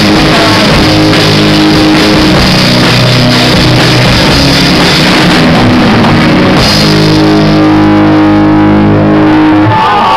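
Live rock band playing loud: electric guitars, bass guitar and drum kit. About seven seconds in the sound thins to a held, ringing chord that stops shortly before the end.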